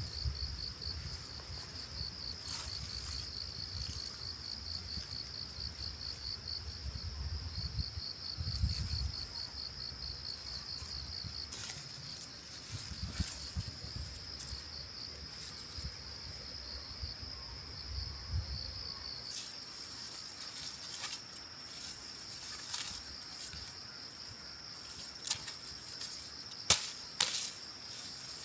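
Insects chirring in a steady high-pitched trill that pulses rapidly in stretches, with scattered light clicks and rustles and two sharper knocks near the end.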